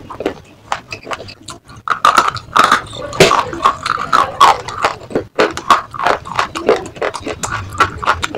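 Close-up biting and chewing of brittle slate pieces: a dense run of sharp crunches and crackles.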